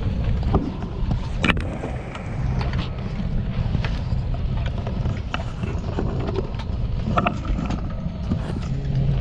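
Airliner cabin during boarding: a steady low rumble, with scattered knocks and clicks as passengers stow bags in the overhead bins.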